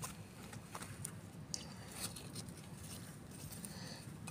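Faint scattered ticks and scrapes of a small hand trowel and loose soil, softer than the metal clinks of digging.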